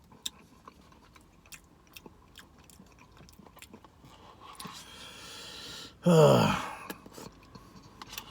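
Close-miked eating sounds: soft chewing with small wet mouth clicks and lip smacks. About five seconds in comes a long breath in, then a short, loud vocal groan that falls in pitch.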